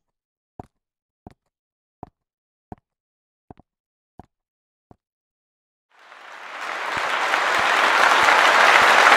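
Seven footsteps of high-heeled shoes on a hard stage floor, evenly paced about two every one and a half seconds, then a dense rushing noise that swells louder over about three seconds and cuts off suddenly.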